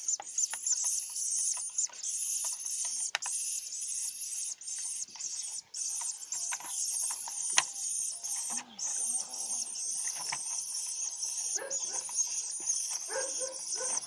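Hoopoe nestlings begging for food: a continuous chorus of high, rapidly wavering cheeps, with a few soft clicks and taps among them.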